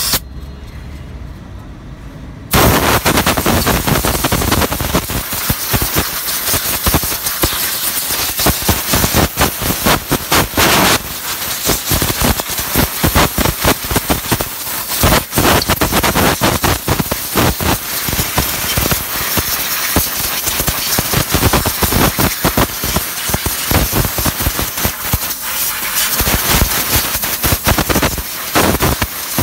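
High-pressure spray gun jetting at a wet diesel engine bay: a loud, rough hiss that starts about two and a half seconds in and keeps sputtering and crackling as the jet hits the engine parts.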